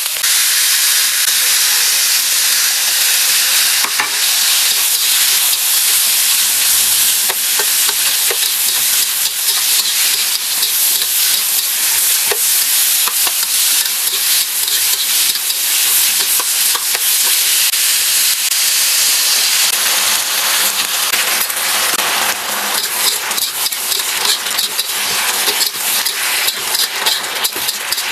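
Food sizzling and frying in a hot pan while it is stir-fried, a steady loud hiss with scattered short clicks from the stirring.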